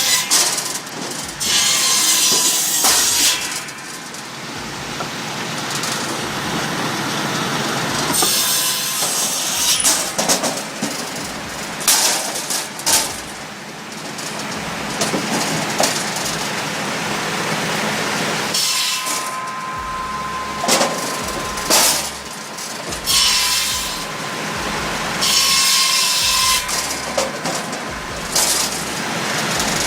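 Tractor-mounted homemade firewood saw running, with repeated loud hissing surges as it cuts through logs, several times over, and a faint whine between cuts.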